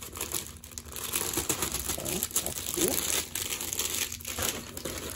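Thin plastic packaging crinkling as it is handled by hand, a steady run of small crackles.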